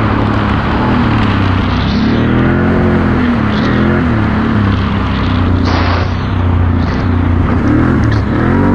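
Can-Am Outlander XT-P ATV's V-twin engine running at speed, its pitch rising and falling again and again as the throttle is opened and eased, over a steady rumble of tyres and wind on wet dirt. A brief rush of noise comes about six seconds in.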